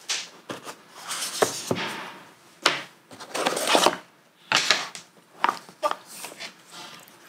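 Cardboard box and paper packing being handled as the contents are taken out: irregular rustling and scraping with several light knocks and clicks.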